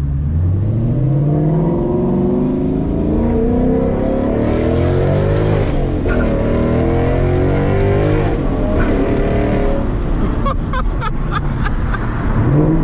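Ford Mustang GT's 5.0 L V8 through a Corsa Xtreme catback exhaust under hard acceleration. The revs climb and drop back at the gear changes. A short run of sharp crackles comes about ten seconds in.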